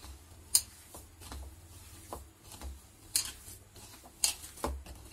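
Hand mixing grated boiled potato, cabbage, spices and rice flour in a bowl: faint mixing noises with a few sharp clicks, the loudest about half a second in.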